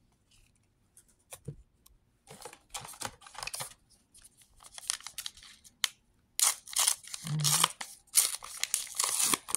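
Crinkling and tearing of a foil trading-card booster pack wrapper, mixed with cards being handled. It starts after a near-silent couple of seconds and is loudest over the last three seconds.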